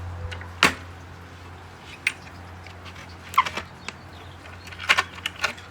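A handful of sharp clicks and knocks at irregular intervals, with a cluster near the end, over a steady low hum.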